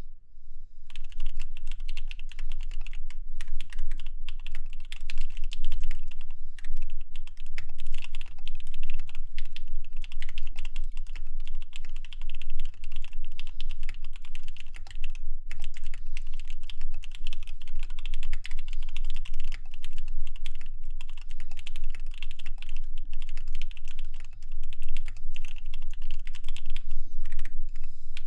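Continuous fast typing on a wilba.tech Thermal custom keyboard in a raw aluminum case with lubed Alpaca V2 linear switches on a full aluminum plate. Rapid keystroke clacks start about a second in and run with only a couple of brief pauses.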